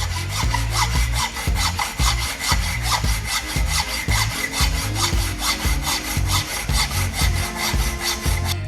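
Rapid, even back-and-forth sawing strokes, about five a second, cutting through material by hand.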